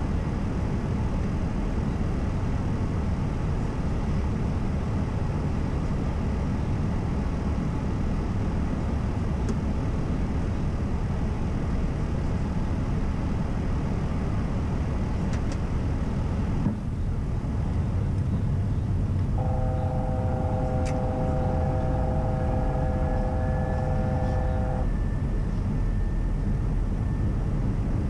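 Steady rush of airflow and engine noise inside an Airbus A320 cockpit in flight. About two-thirds of the way in the noise changes abruptly, and a steady tone of several pitches sounds for about five seconds.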